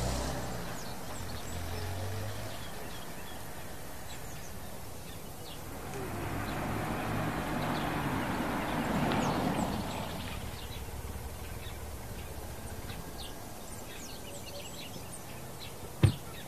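An SUV's engine running low as it drives off, with a swell of engine and tyre noise passing midway, and small birds chirping now and then. A single sharp knock comes near the end.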